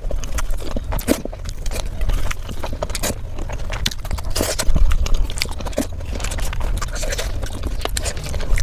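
A person eating: chewing and mouth sounds with many short, irregular clicks.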